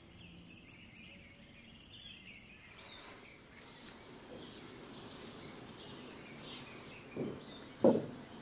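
Birds chirping faintly, with two short low knocks near the end.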